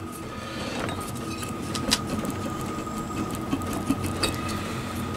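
Light scraping and a few small metal clicks as a piston ring is pushed square into a Triumph T140 cylinder bore using the piston, with a sharper click about two seconds in. A thin steady background hum runs underneath.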